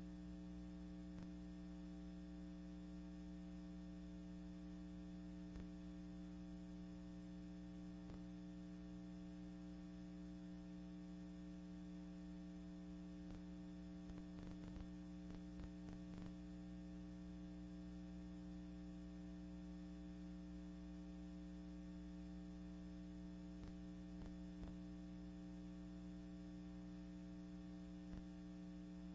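Steady electrical mains hum with a faint hiss and a few faint scattered clicks: the noise floor of a silent archival film transfer, with no original sound.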